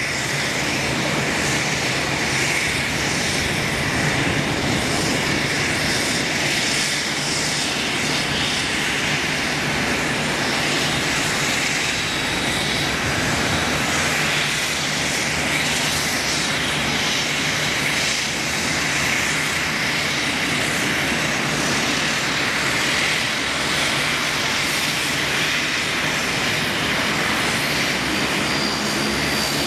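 Embraer 195 airliner's twin General Electric CF34 turbofans running at low thrust as the jet rolls along the runway after landing: a steady rushing noise with a faint high whine.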